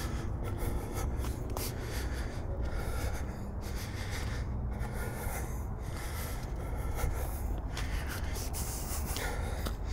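Close, steady breathing on a camera's built-in microphone, rising and falling every second or so, over a low handling rumble as the person carrying it walks.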